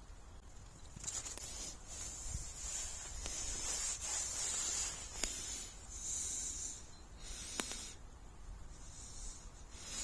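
Intermittent high-pitched hiss coming and going in stretches of one to two seconds, with a couple of faint clicks.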